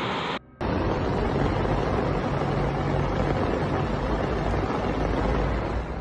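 Steady, even rushing noise of fast-flowing floodwater with a low hum underneath, starting after a brief gap about half a second in.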